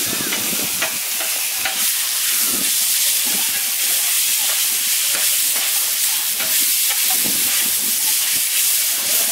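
Cubes of beef sizzling on a hot flat-top griddle, a steady frying hiss. Metal spatulas scrape and tap against the griddle now and then as the meat is turned.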